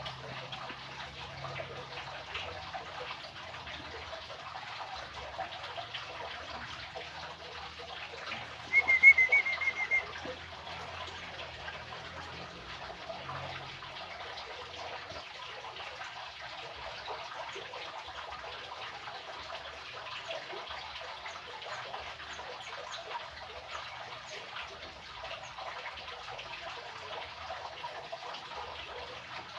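A single short wavering chirp from a young sooty-headed bulbul about nine seconds in, the loudest sound, over a steady rushing hiss like running water.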